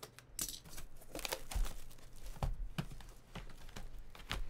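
Plastic trading card packaging crinkling and tearing as it is opened, with irregular sharp clicks and rustles of handling.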